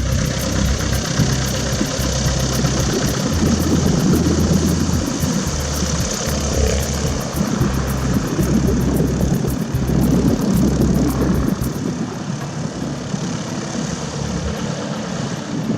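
Cessna 172's 180 hp piston engine and propeller running at low power while the plane taxis, with wind buffeting the microphone. A music track with a steady beat plays underneath and stops about twelve seconds in.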